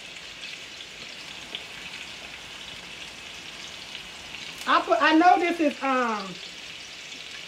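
Sliced bell peppers and onions sizzling steadily in hot oil in a frying pan. A person's voice breaks in for about a second and a half, about two-thirds of the way through.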